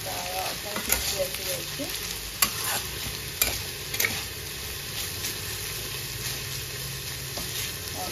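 Beans frying in oil in a pan with a steady sizzle. A spatula stirring them knocks against the pan several times in the first four seconds.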